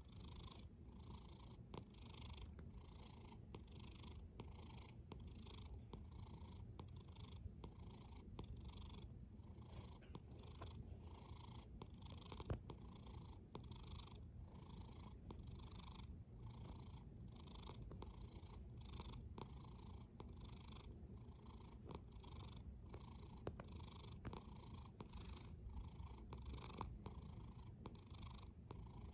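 Sleeping cat snoring softly with a purr-like rumble: a faint, steady low rumble under soft, rhythmic breath sounds coming a little more than once a second.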